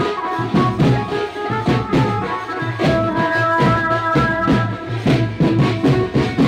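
Wedding band-party music: a held melody line over fast, regular drum beats, played for dancing at a Bengali wedding's water-filling ritual.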